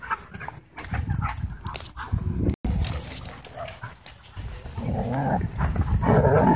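Several dogs play-fighting and chasing, making short growls, whines and yips, loudest near the end. The sound cuts out for an instant about two and a half seconds in.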